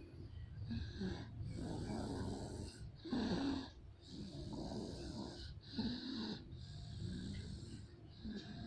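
Snoring in sleep: a run of rasping breaths in and out, about one a second, the loudest a little over three seconds in.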